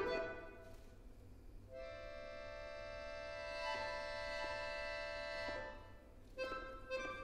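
Solo accordion playing contemporary music: a quick flurry of notes fades out, then a high, sustained chord is held for about four seconds, swelling slightly in the middle, followed by a couple of short notes near the end.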